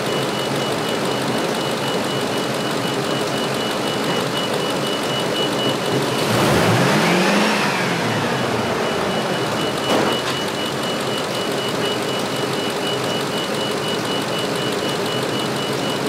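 Ford F350 pickup engine idling, revved once about six seconds in, its pitch rising and falling back to idle over a couple of seconds, during a charging-system rev test of the new alternator. A sharp click about ten seconds in, and a steady high-pitched beeping runs throughout.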